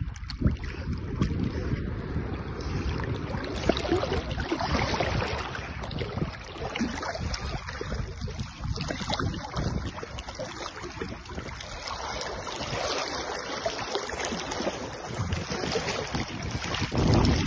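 Lake water sloshing and splashing right at the microphone as the dog swims alongside, with wind buffeting the microphone. The level rises and falls unevenly.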